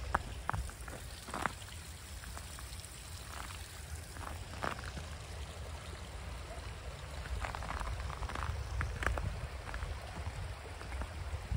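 A small open brook trickling among snow and stones, with a few footsteps crunching in the snow.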